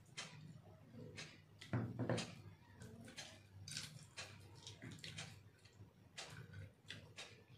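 A person eating biryani by hand: chewing and mouth smacks, with many small clicks of fingers and rice against a glass plate, several a second. There is a louder thump about two seconds in.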